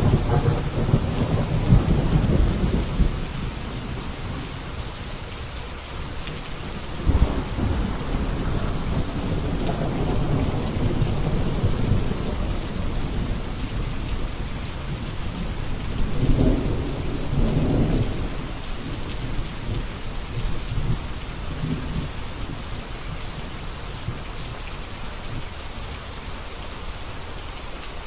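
Steady rain falling, with rolling thunder rumbling underneath: a long rumble at the start, another beginning sharply about seven seconds in, and a third around sixteen seconds, fading to rain alone near the end.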